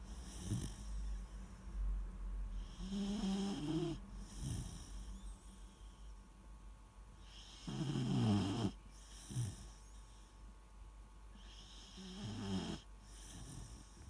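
Weimaraner puppy snoring in its sleep: three slow snoring breaths about four seconds apart, each a rattling snore followed by a shorter, softer breath, the loudest about eight seconds in.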